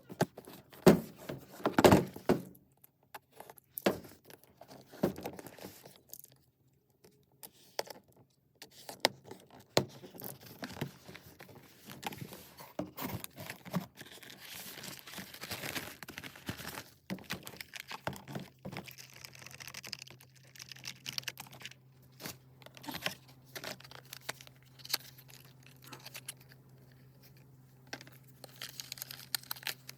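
Packaging crinkling and tearing in irregular bursts, with occasional knocks and thunks as items are handled, with a louder flurry about two seconds in and a brief lull partway through. A faint low hum comes in past the midpoint.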